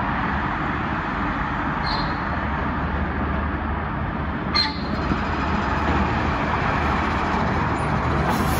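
Steady roar of busy highway traffic beside the rail line, with a Washington Metro train approaching on the tracks and growing slightly louder near the end. Two brief high-pitched clicks, about 2 and 4.5 seconds in.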